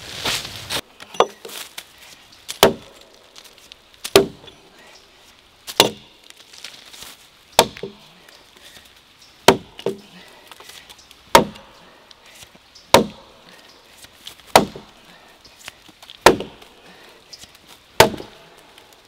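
An axe chopping into a fallen log: about eleven sharp strokes at a steady pace, one every second and a half to two seconds.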